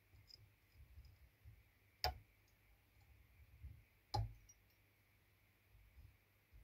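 Two sharp, light clicks about two seconds apart as a whip-finish tool ties off the thread at the head of a fly in the vise. Otherwise near silence with a faint low hum.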